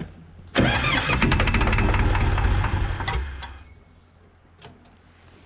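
Case 188 four-cylinder diesel engine cranking and firing, catching suddenly about half a second in and running roughly for about two and a half seconds before dying away. It wants to run but is starved of fuel.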